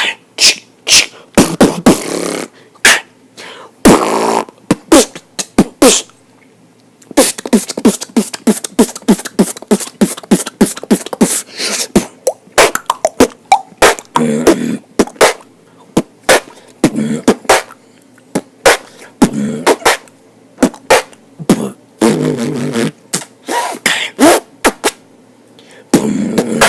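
A beatboxer's vocal percussion: sharp mouth-made kicks, snares and clicks in fast runs, with a short pause about six and a half seconds in and low hummed bass notes mixed in during the second half.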